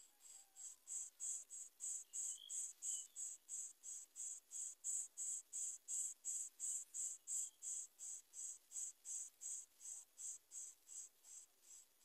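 Greater coucal nestlings begging at the nest as a parent feeds them: a rhythmic run of high-pitched pulses, about three a second, growing louder and then fading toward the end.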